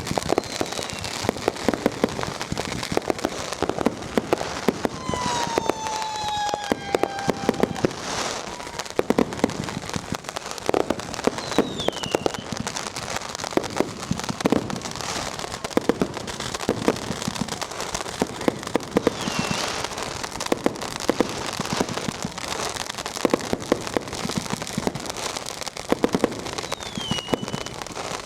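Firecrackers and fireworks going off all around in a continuous dense crackle, punctuated by frequent loud bangs. Whistling fireworks shriek a few times with falling pitch, the longest about five seconds in.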